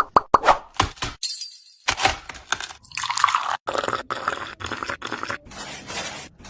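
A run of quick clicks, then gritty crunching and scraping, like mini bricks and fine mortar being worked on a miniature build.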